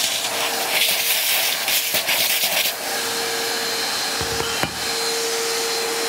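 Wet-and-dry vacuum cleaner (15-litre canister model) running with its hose nozzle in a glass vase, slurping up the last of the water in uneven rushes for the first few seconds, then running steadily as it draws mostly air.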